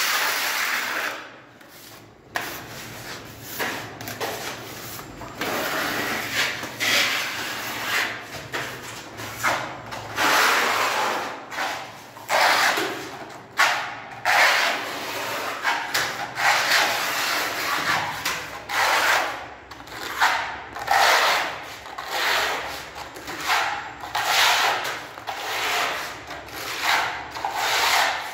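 Hand sanding of a putty-coated wall with a sanding block, scratchy back-and-forth rubbing strokes about one a second with short breaks.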